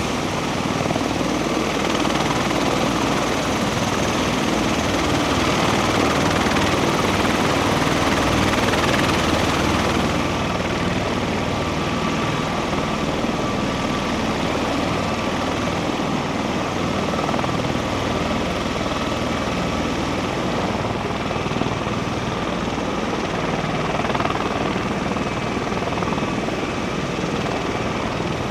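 MV-22 Osprey tiltrotors running on the ground, their twin turboshaft engines and proprotors making a steady loud roar. The highest hiss drops away about ten seconds in.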